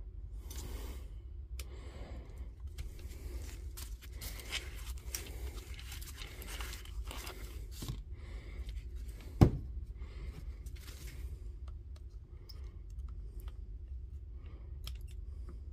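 Small handling sounds of soldering work on a battery pack: scattered scrapes, crackles and light clicks, with one sharp knock about nine and a half seconds in.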